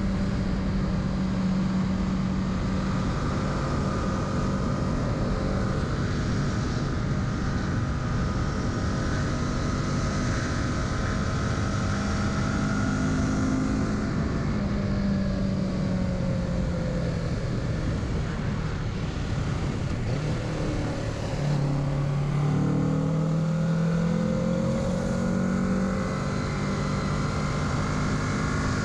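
Kawasaki Z650's parallel-twin engine running on the move, its note rising and falling with the throttle over a steady rush of wind noise. Its pitch drops sharply about three-quarters of the way in, then climbs again.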